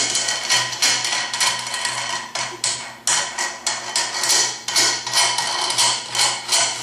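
Metal clicking and clinking, about two or three sharp clicks a second, unevenly spaced, from hands working a homemade clutch-spring compressor on an automatic transmission clutch drum. The wooden pressing plate and its nut are being settled and run down the threaded bar.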